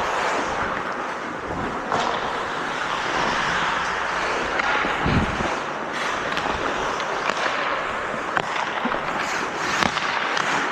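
Hockey play: a steady scraping hiss of players moving over the playing surface, with scattered sharp clicks of sticks and puck and a dull low thump about halfway through.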